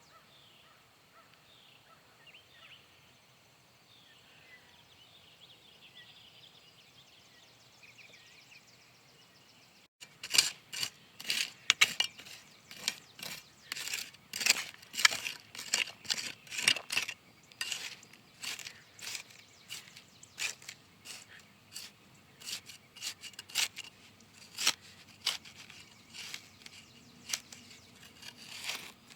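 Faint bird chirps, then, from about a third of the way in, a long run of sharp, irregular clicks or snips, roughly one to three a second.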